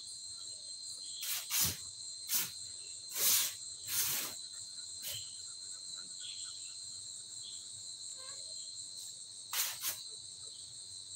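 Steady high-pitched insect chirring with one unchanging tone in it, broken by a handful of short, sharp knocks or rustles: two close together a little over a second in, more around two and a half, three and four seconds, and a pair near ten seconds.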